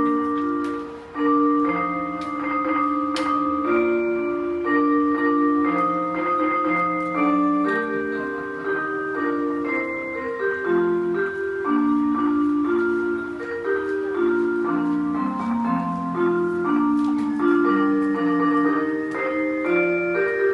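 Chichibu city's noon chime playing a slow melody in mellow, bell-like mallet tones.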